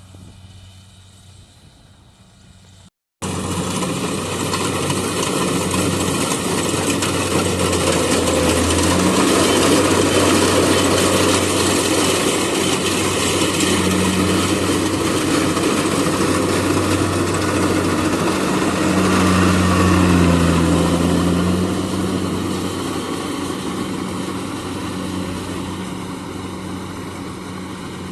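Rice combine harvester's engine running in the field, with a steady low hum. It starts loud about three seconds in, swells, then slowly fades.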